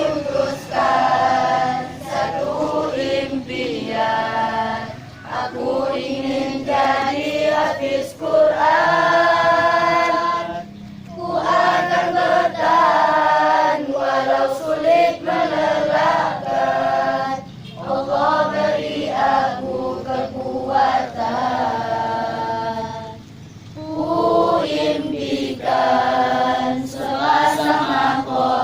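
Choir singing phrase by phrase, with short breaks between the phrases.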